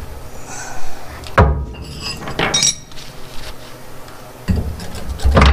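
Steel steering linkage of a 1977 Chevy C10 (tie rods and drag link) clanking and clinking as it is worked loose and lowered off the pitman arm, with a few sharp metal knocks.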